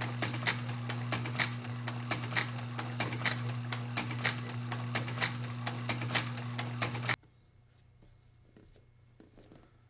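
Outsole stitching machine sewing a boot sole to its welt: a steady motor hum under a regular clacking of the needle and awl, about two strokes a second. It stops suddenly about seven seconds in, leaving only the faint strokes of a glue brush on the sole.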